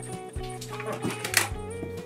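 Background music with a beat, over a few sharp plastic knocks and rattles from an IKEA salad spinner as its basket is lifted out and the outer bowl is handled, the loudest about a second and a half in.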